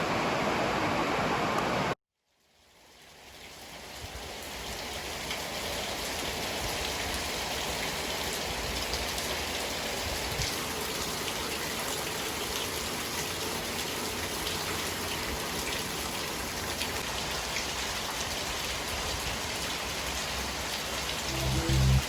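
Steady rain falling in a storm, fading in after a sudden cut to silence about two seconds in. Music starts near the end.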